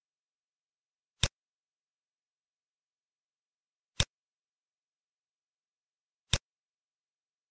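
Three single sharp computer-mouse clicks, about two and a half seconds apart, in otherwise dead silence.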